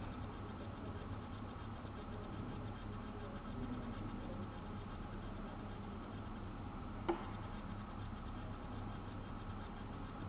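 Quiet room tone with a steady low hum, broken once by a single short click about seven seconds in.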